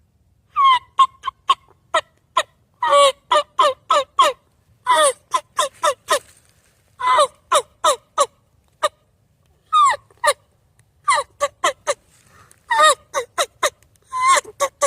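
Turkey diaphragm mouth call with a U-shaped reed cut, blown in runs of hen yelps: short notes that each break from a high to a lower pitch, in about eight series of three to six notes.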